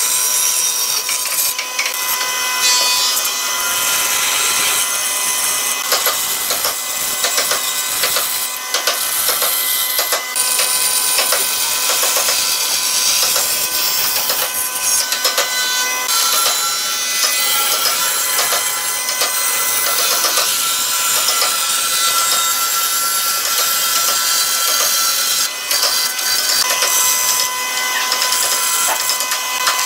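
Bandsaw cutting a curve through a thick softwood board: the steady whine of the running saw under the rasp of the blade in the wood. The whine steps slightly in pitch about halfway through and again near the end.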